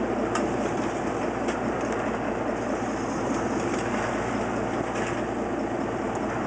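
Fishing boat's engine running steadily under way, mixed with the rush of water along the hull, with a few light clicks of gear being handled.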